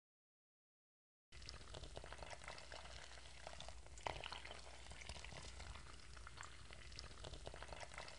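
Brewed coffee pouring from a syphon brewer's glass bulb into a glass mug, a steady crackling trickle that starts suddenly about a second in. A faint low hum sits underneath.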